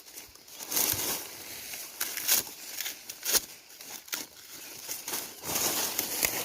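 Dry maize stalks and leaves rustling and crackling in irregular bursts as they are cut and handled, with a few sharper snaps.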